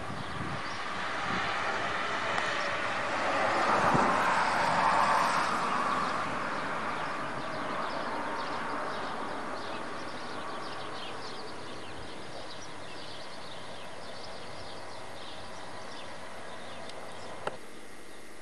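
A vehicle passing by, its noise swelling to a peak about four seconds in and then fading away, leaving a steady low hiss. A single click near the end.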